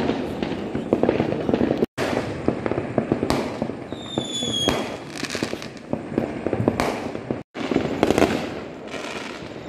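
Fireworks and firecrackers going off in a continuous crackling volley of pops, with a short, slightly falling whistle about four seconds in. The sound cuts out for an instant twice.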